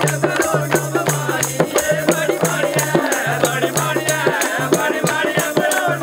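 Dogra folk music: dhol drums beating a quick, steady rhythm with a wavering melody above it.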